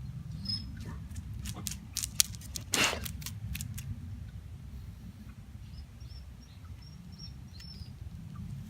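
Outdoor ambience with a steady low rumble, a cluster of sharp clicks and scrapes about one to four seconds in, and a few faint high chirps.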